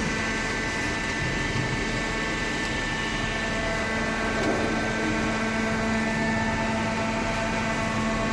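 Hydraulic carton baler running: a steady machine hum from its motor and hydraulic pump, with a constant low tone and higher whining tones over mechanical noise.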